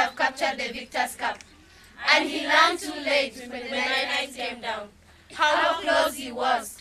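A group of schoolgirls' voices performing in unison, half sung and half chanted, in phrases with brief pauses about two and five seconds in.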